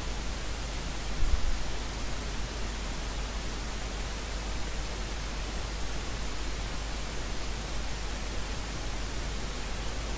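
Steady, even hiss over a low hum, with a brief low thump about a second in.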